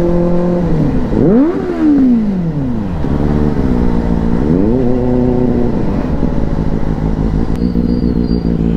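Benelli 600i motorcycle's inline-four engine running under way. About a second in, and again about five seconds in, the revs rise sharply and fall back. It then settles to a steady, lower note.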